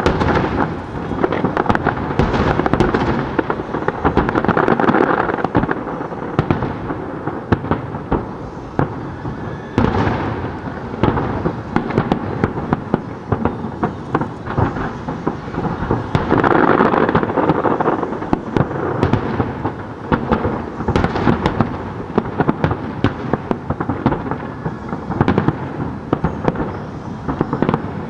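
Aerial firework shells bursting in a dense, continuous barrage of booms and crackles, swelling to heavier clusters about 4 seconds in and again about 17 seconds in.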